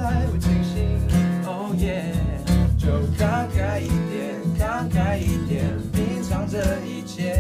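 A small acoustic band playing a pop song: strummed acoustic guitar and bass guitar with a hand shaker keeping a steady beat, and several voices singing together in harmony.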